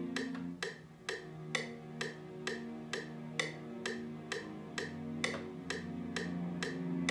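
Software-instrument music played from a USB MIDI keyboard controller and heard through studio monitors: sustained low chords that change every second or two over a steady sharp click about twice a second.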